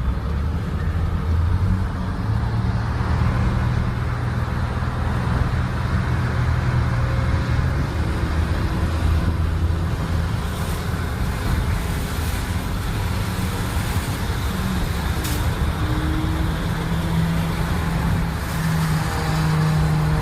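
Motor vehicle engine running with steady road noise. The engine note drops about eight seconds in and rises again near the end.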